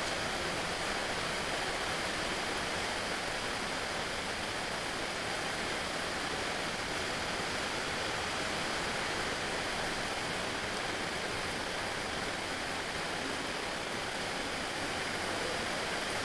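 Steady, even hiss with no distinct knocks, voices or changes.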